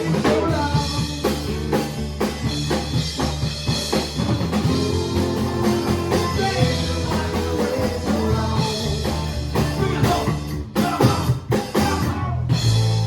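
Live band playing a rock song on guitar and drum kit, with drum hits throughout. A final chord starts ringing out near the end.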